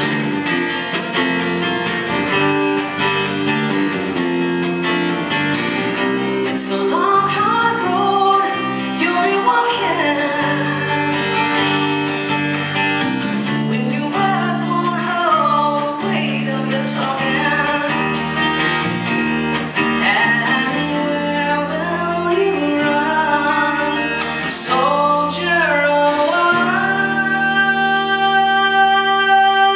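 Live acoustic music: guitar playing sustained chords under a melody line that glides and wavers, giving way to a steady held chord near the end.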